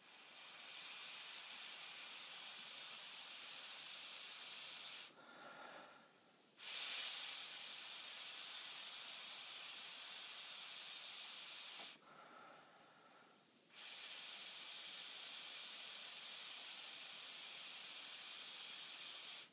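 Steady hiss of air blown through a plastic drinking straw, in three long breaths of about five seconds each with short breaks between.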